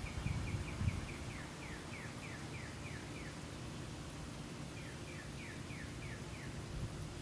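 A songbird singing runs of quick, falling whistled notes: a long run of about a dozen that slows as it goes, a pause, then a shorter run of about half a dozen. Under it a steady low background rumble, with a few soft rustles of plants being handled near the start.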